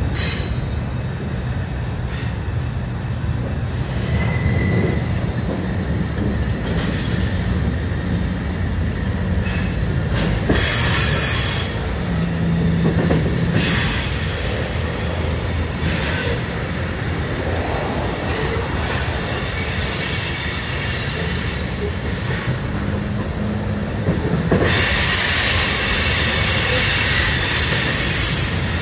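Conrail freight train's autorack and tank cars rolling past on curved track: a steady rumble of wheels on rail, with high-pitched wheel squeal coming and going and then holding, a little louder, over the last few seconds.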